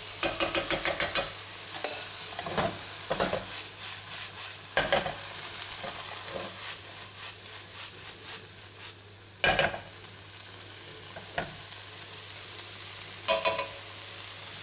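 Diced asparagus and leek sizzling in a nonstick frying pan while a utensil stirs and scrapes through them. There is a quick run of stirring strokes at the start, a sharper knock against the pan about two-thirds through, and another short run of scrapes near the end.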